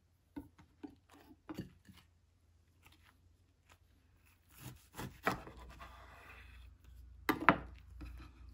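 Chef's knife slicing through a rice paper spring roll and knocking on a wooden cutting board, with lighter knocks and handling of the board and roll; the loudest knocks come about seven seconds in.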